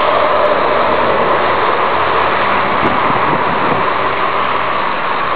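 Steady rushing of strong wind around a small vertical-axis wind turbine spinning at high speed, with the wind on the microphone and the rotor's whoosh blended into one even noise.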